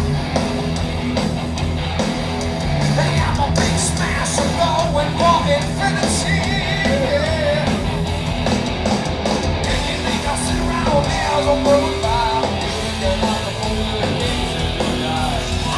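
Heavy metal band playing live, with distorted electric guitars over bass and drums and wavering lead guitar lines, heard through an audience bootleg recording.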